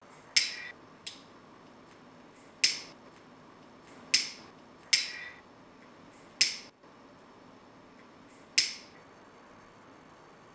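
Disposable lighter struck again and again with the thumb: six sharp flicks, each with a short fizzing tail, at uneven gaps of one to two seconds.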